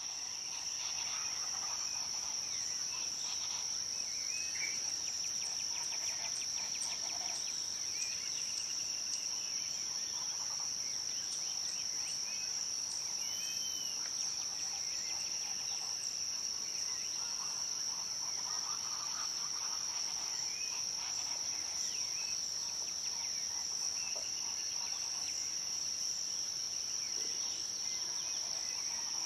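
A steady, high-pitched insect chorus drones without a break, with scattered short bird calls over it.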